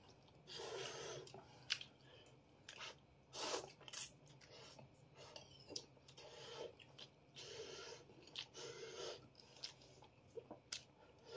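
A man eating noodles from a bowl: quiet chewing and mouth noises, broken by a few short, sharp clicks.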